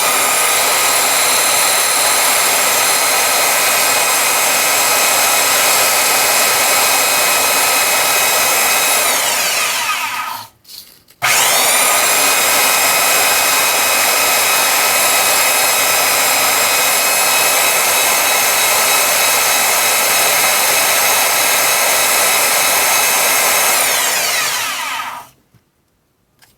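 Bandsaw running while cutting notches in plastic Packout bin dividers. It winds down about ten seconds in, starts again right away with a rising whine, and runs until it is switched off and spins down near the end.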